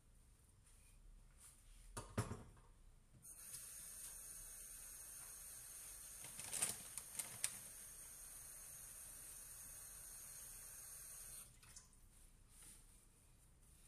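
Kitchen tap running for about eight seconds, starting about three seconds in and shutting off sharply, with a few clinks in the middle, as a mixing bowl is rinsed. A knock about two seconds in, before the water starts.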